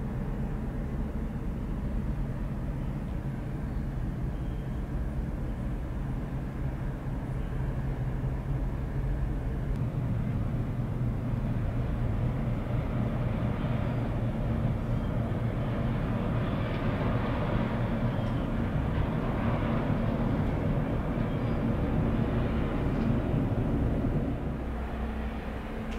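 Deep, steady drone of a passing ro-ro cargo ferry's engines, a low hum with a few held tones under a hiss. It swells somewhat in the second half and drops off suddenly shortly before the end.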